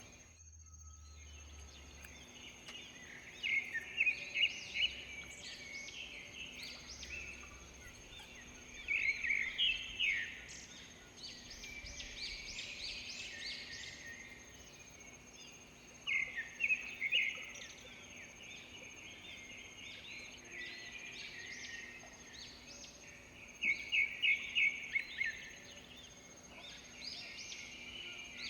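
Rural tropical morning ambience with birdsong: a bird repeats a short, rapid run of loud notes four times, roughly every seven seconds, over softer background calls and a steady high-pitched tone.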